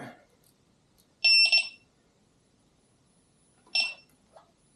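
Electronic beeper sounding a quick double beep, then a single shorter beep about two and a half seconds later.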